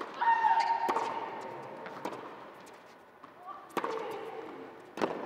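Tennis rally: sharp hits of the ball roughly once a second. A loud player's grunt comes with the first shot, and a second, quieter one about four seconds in.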